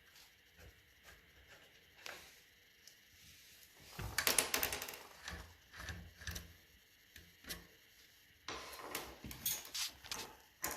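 Clicks and metallic clatter of tools working on a bicycle brake caliper as its mounting bolts are loosened. There are two busier bursts of rapid clicking, about four seconds and eight and a half seconds in.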